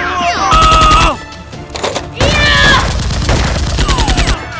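Automatic gunfire sound effects: two rapid-fire bursts, one about half a second in and one near the end, with falling whistles between the shots and background music underneath.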